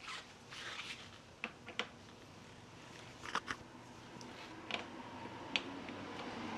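Hand tool and fork parts being handled: several light, separate clicks and knocks, with some rustling in the first second.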